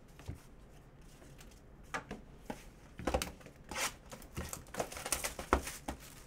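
Cardboard trading-card hobby box (2019 Panini Contenders football) being handled and slid across a tabletop mat, giving a run of irregular cardboard rustles, scrapes and knocks starting about two seconds in.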